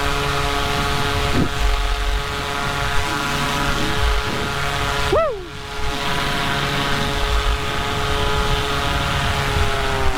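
Paramotor engine and propeller running steadily at cruise, a droning note with strong overtones. About halfway through the pitch swoops up and falls away as the sound briefly drops, then it settles back to the steady drone.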